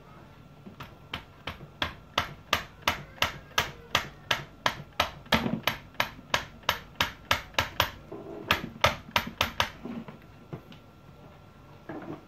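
Sharp, evenly spaced knocks against a plaster-covered masonry wall, about three a second, with a short break about eight seconds in.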